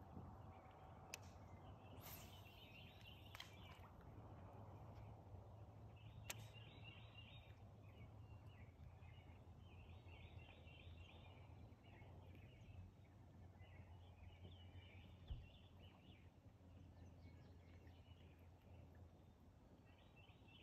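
Faint songbird song: short, rapid chirping phrases repeated about every three to four seconds over a faint low hum.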